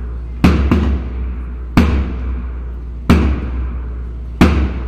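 Bass drum struck with a mallet, keeping time for a group aerobic drill: a quick double beat, then single beats about every 1.3 seconds.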